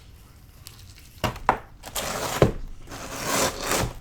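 Food packaging being handled at the table: a few sharp clicks and two spells of scraping and rustling.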